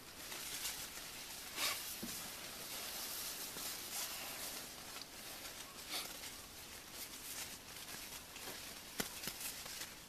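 Steady outdoor hiss with a few faint, short clicks or taps, the sharpest about nine seconds in; no bird calls.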